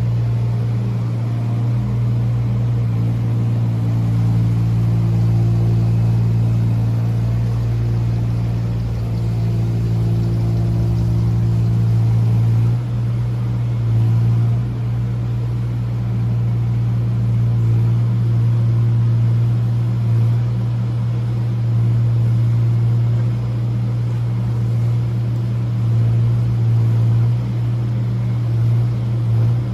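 Mini excavator's engine running steadily at a constant low pitch, with several brief dips in pitch in the second half.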